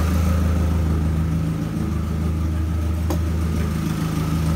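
BMW 318ti four-cylinder engine idling steadily. It is running louder than normal because exhaust escapes from the open upstream oxygen-sensor port ahead of the catalytic converter. A single light click comes about three seconds in.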